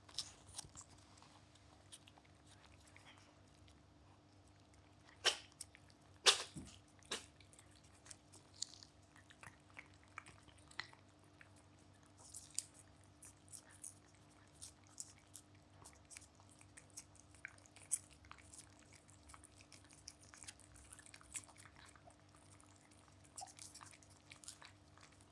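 Several cats licking a creamy paste treat from a squeezed tube: an irregular patter of small wet licking clicks, with two louder clicks about five and six seconds in.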